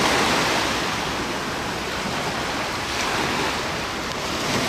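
Small ocean waves breaking and washing up a sandy beach, a steady rushing wash of surf, with wind buffeting the microphone.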